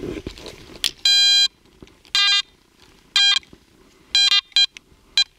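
Metal detector sounding its target tone as the coil is swept over a signal: a series of short electronic beeps, about one a second, the first and last a little longer. The detector is giving an unsteady signal, which the detectorist takes for iron in the hole confusing it.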